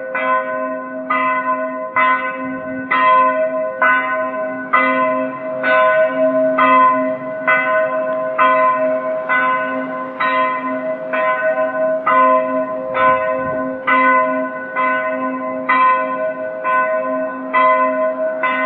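A single church bell tolling steadily, struck about once a second, each stroke ringing on into the next.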